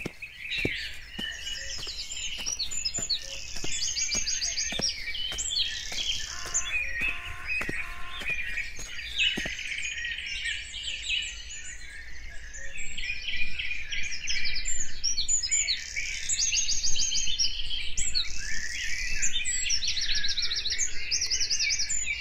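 Several birds chirping and trilling at once, a dense, busy chorus of overlapping calls. Scattered sharp clicks come through during the first half.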